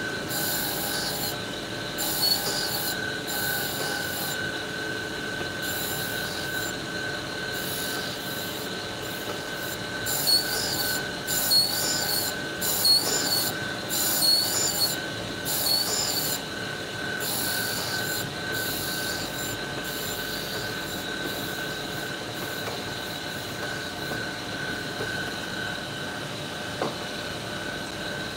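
Tool and cutter grinder's wheel whining steadily, with repeated rasping grinding passes about one a second as a chamfer bit's cutting edge is swept across the wheel to grind its relief. There are several passes at the start and a louder run in the middle, then only the whine of the wheel running free.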